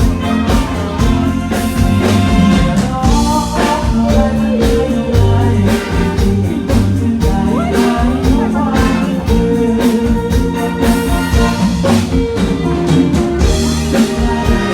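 Live band playing loudly through a PA during a sound check: drum kit keeping a beat under guitar and other instruments, with a voice singing at times.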